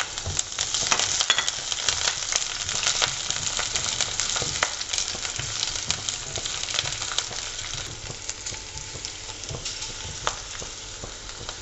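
Sliced green chillies, ginger and garlic sizzling in hot oil in a non-stick wok, stirred with a silicone spatula that taps and scrapes against the pan. The sizzle eases a little in the last few seconds.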